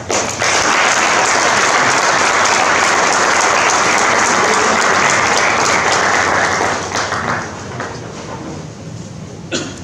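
Audience applauding, loud and steady, then dying away about seven seconds in. A single sharp click near the end.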